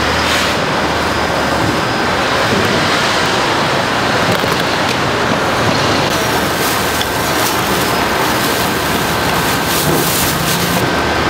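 Steady, loud hiss of pancake batter frying in oil on a hot griddle, with a faint steady whine and low hum under it and a few light clicks.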